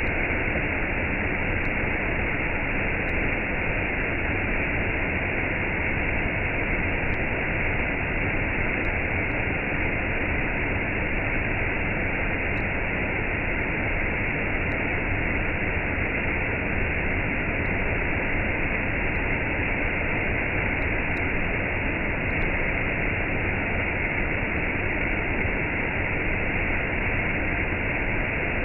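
Waterfall and cascade: a steady, unchanging rush of falling water.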